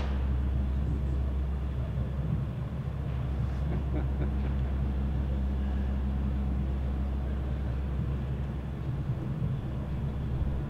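Steady deep rumble with a low hum, cutting off near the end.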